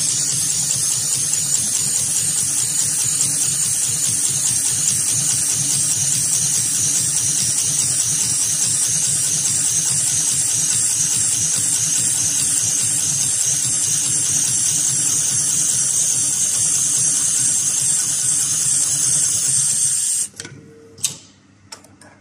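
HighTex 71008R heavy-duty automatic rope sewing machine running, its needle stitching through a thick climbing rope with a steady fast whir and high hiss. It stops suddenly about 20 seconds in, and a few sharp clicks follow.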